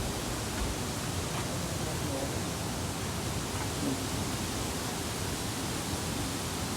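Wind blowing across the microphone on an exposed mountain path: a steady rushing noise that flutters in the low end.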